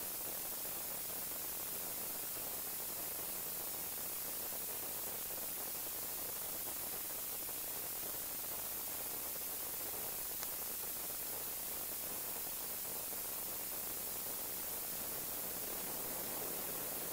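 Steady, even hiss, brightest in the highest pitches, with no distinct sounds over it apart from a faint tick about ten seconds in.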